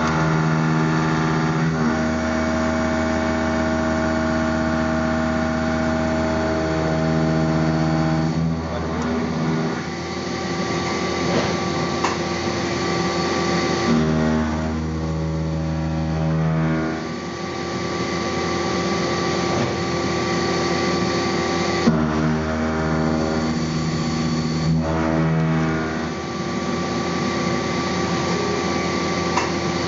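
Five-axis CNC mill roughing a 303 stainless steel putter head: the spindle and cutter make a steady, pitched machining whine. The whine shifts in pitch and level every few seconds, with a brief dip in loudness about 10, 17 and 26 seconds in.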